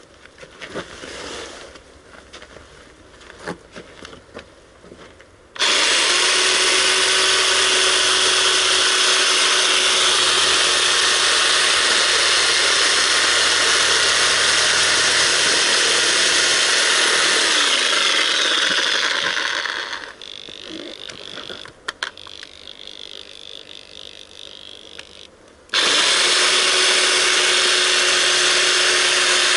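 Reciprocating saw cutting open an animal's head. After a few seconds of quiet handling, the saw runs loud and steady for about fourteen seconds, then stops. It starts again about six seconds later.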